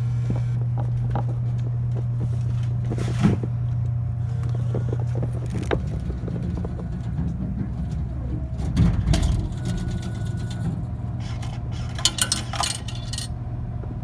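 Steady low hum of a vending machine, with a sharp click about three seconds in, a cluster of knocks around nine seconds and a jangling rattle of clicks near the end as the machine is handled.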